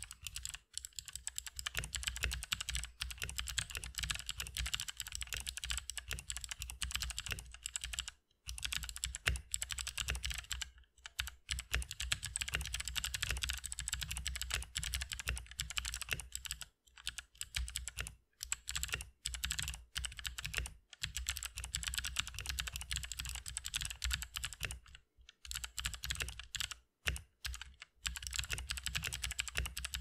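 Typing on a Royal Kludge RK84 mechanical keyboard fitted with NovelKeys Sherbet clicky switches: fast, continuous keystrokes with a higher-pitched click, in runs broken by several brief pauses.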